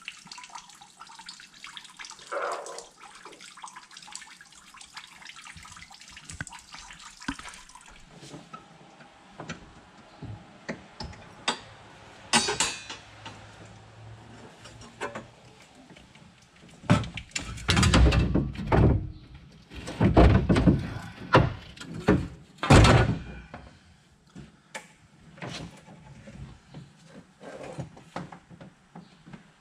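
Engine coolant pouring in a steady stream into a plastic jug, stopping about seven seconds in. Later come scattered knocks and then a run of loud metal clunks and rattles as radiator parts are handled.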